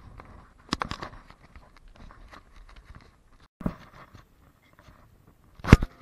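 Scattered knocks and light rustling, with a few sharp knocks just under a second in and a louder sharp knock near the end.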